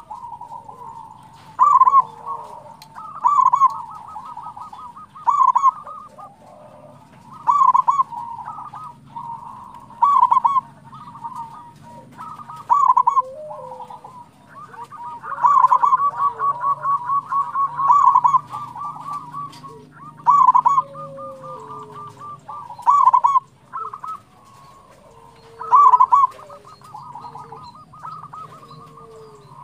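Zebra dove (perkutut) singing: loud bursts of quick, stuttering coos every couple of seconds, a few drawn out into a longer rattling trill about halfway through, with softer gliding calls in the gaps.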